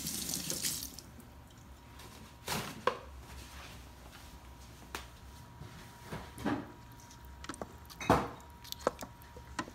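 Kitchen items being handled, scattered knocks and clicks with the loudest about eight seconds in, over a faint steady hum. A brief swish in the first second.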